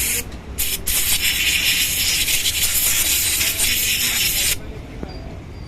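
Spray hissing on a motorcycle carburetor being cleaned: a short burst, then one long burst of about three and a half seconds that cuts off suddenly.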